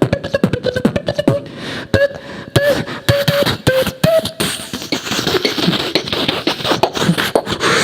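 Human beatboxing: fast mouth-made kick and click strokes under a held, hummed-like note that steps up and down in pitch, giving way about halfway through to a denser, hissing, scratch-like texture that keeps the beat going.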